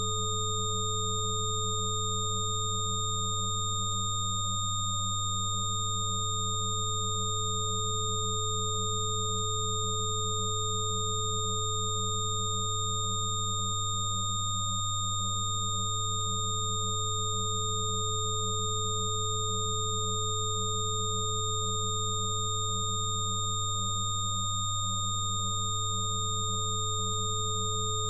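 Layered steady electronic sine tones for sound therapy: a low hum-like tone is loudest, with higher pure tones held above it. One middle tone drops out briefly three times, about ten seconds apart.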